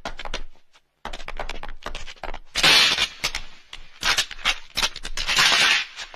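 Action-scene sound effects: a quick string of sharp clicks and cracks broken by several louder bangs.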